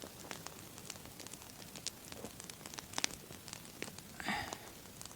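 Log 'candle' campfire (a split upright log burning from the inside) crackling with scattered, irregular sharp pops, and a brief hiss about four seconds in.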